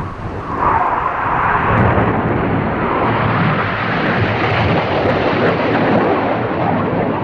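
Red Arrows BAE Hawk T1 jets flying past low, their jet noise swelling loud about half a second in and holding as a steady rushing sound.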